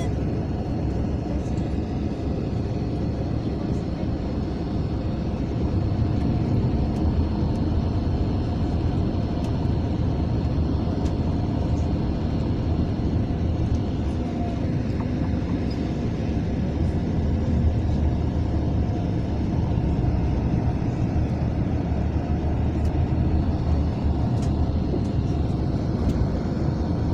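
Mercedes-Benz O500 RSD coach running, its engine and road noise heard from inside the passenger cabin as a steady low rumble.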